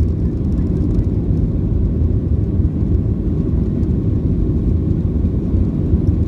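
Steady low rumble of a Boeing 737-700's CFM56-7B jet engines and rushing air, heard inside the cabin as the airliner climbs after takeoff.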